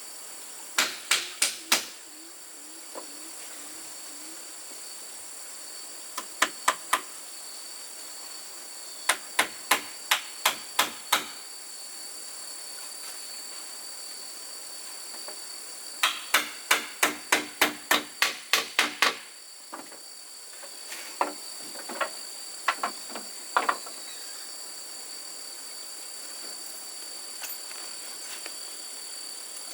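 Hammer blows in quick runs of three to ten strikes, about three a second, with pauses between runs and a few single blows near the end. A steady high drone of insects runs underneath.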